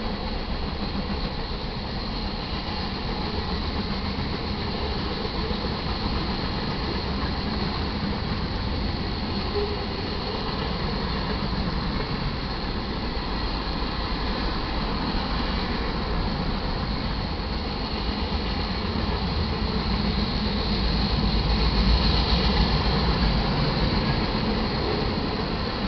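Freight cars of a passing manifest train rolling by steadily: wheels rumbling and clattering on the rails, with a thin steady high tone over the rumble. The rumble swells and grows louder about three-quarters of the way through, then eases.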